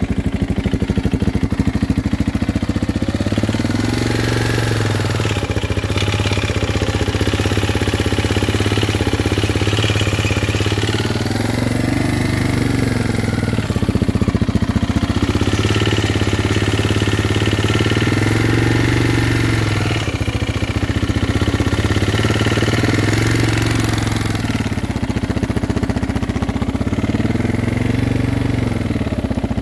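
KTM 690 Enduro's LC4 single-cylinder engine idling steadily, with a higher whine that rises and falls in pitch again and again, about every four seconds. This is the 'singing' the engine started making while riding, its cause unknown to the owner.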